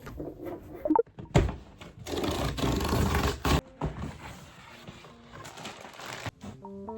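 Handling noise: a few knocks and a rustling scrape for a couple of seconds, then softer shuffling; a few piano-like music notes come in near the end.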